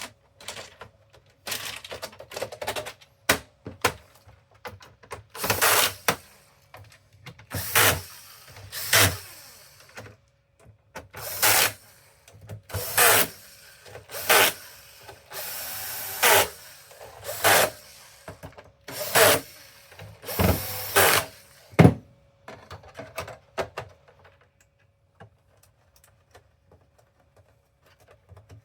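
Power drill driving screws into a PS5 console's casing, in about a dozen short runs of under a second to a second each, with pauses between them.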